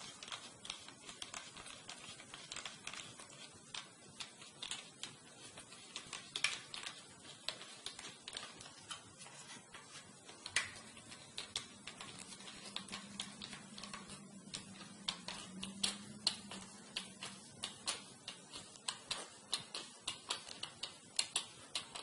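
Faint, irregular clicks and ticks of a small screwdriver turning the screws that hold the metal bracket on a laptop hard drive, coming a little faster near the end.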